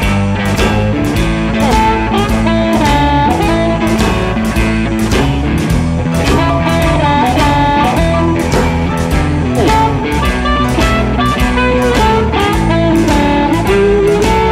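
Electric blues band playing without vocals: electric guitar over bass and drums, with a steady beat.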